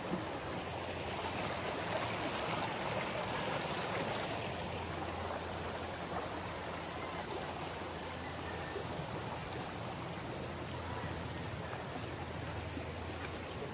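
A shallow stream running over rocks: a steady rush and trickle of water.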